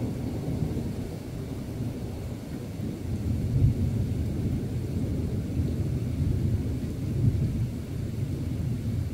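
Thunder rumbling low and continuously, swelling louder about a third of the way in and again near the end.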